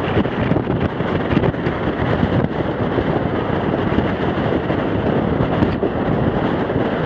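Steady rolling noise of a train passenger car in motion on the track, with wind buffeting the microphone.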